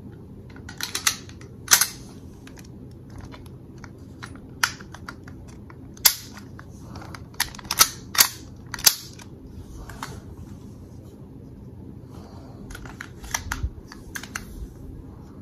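Sharp metal clicks and clacks of an IWI Uzi pistol being handled during reassembly: a scattered run of clicks, four in quick succession in the middle and a smaller cluster near the end.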